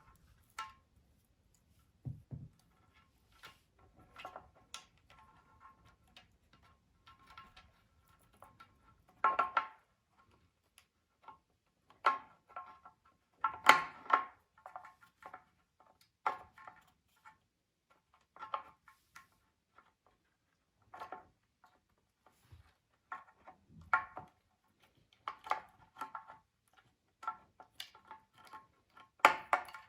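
Irregular clicks and knocks of tools and metal parts being handled during work on an electric scooter, many knocks leaving a short metallic ring.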